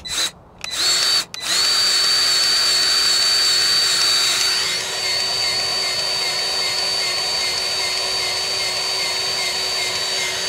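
Battery-powered grease gun running as it pumps grease into a truck's fifth-wheel coupling, to test whether the grease fitting is unclogged. It gives two short bursts, then runs as a steady motor whine for the rest of the time, getting a little quieter about five seconds in.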